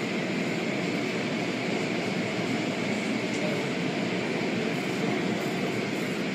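Automatic car wash's spinning cloth brushes and water spray beating steadily on the car, heard from inside the car as a constant rushing and slapping.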